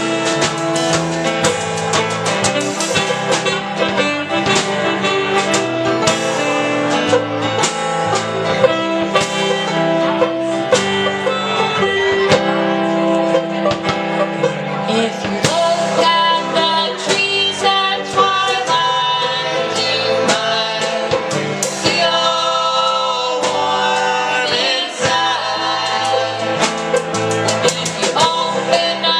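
Folk band playing with plucked guitar to the fore: a busy passage of quick plucked notes over sustained chords.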